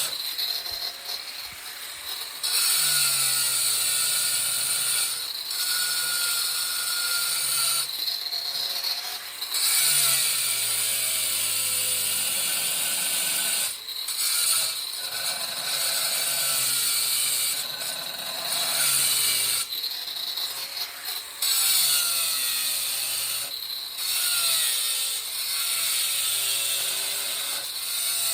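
Angle grinder with a 4 1/4-inch diamond blade cutting stone tile in a series of passes, its whine broken by short pauses every few seconds as the blade is lifted and reset.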